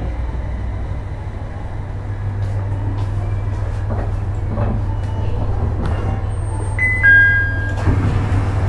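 E721-series electric train standing at the platform with its equipment humming steadily, among scattered small clicks and knocks. About seven seconds in, a loud two-note electronic chime sounds, the second note lower than the first.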